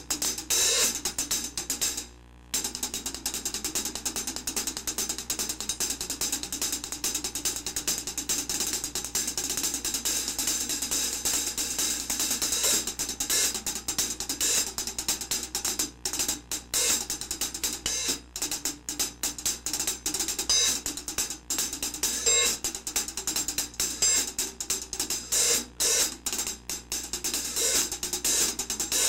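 Early-1970s Avedis Zildjian hi-hat cymbals played with nylon-tipped drumsticks: a fast, continuous run of hi-hat strokes with a bright, sizzling top, broken by a short pause about two seconds in. The recording is made in a small bathroom.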